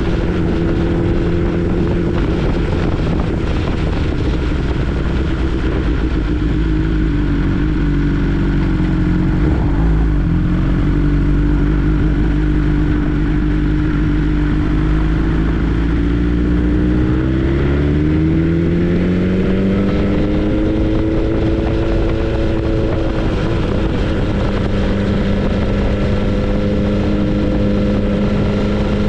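2022 BMW S 1000 R's inline-four engine running steadily while the bike is ridden. Its pitch sags a little about a third of the way in, then climbs smoothly about two-thirds of the way through as the bike accelerates, and holds at the higher pitch.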